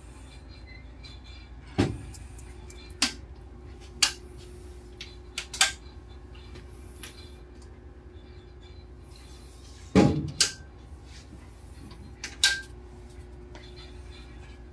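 Steel switchboard panel doors and their latches being handled, giving about seven sharp clicks and knocks, the loudest about two seconds in and again about ten seconds in. Under them runs a steady low hum with one even tone.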